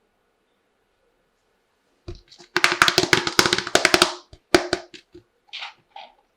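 Small plastic toy dishes and utensils being handled, clattering in a quick run of clicks and knocks, followed by a few single knocks.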